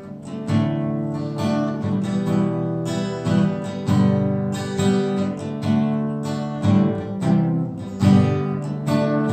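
Acoustic guitar strummed in a steady rhythm, about two strums a second. Fretted chords change as it goes, the strings sounding together as a song.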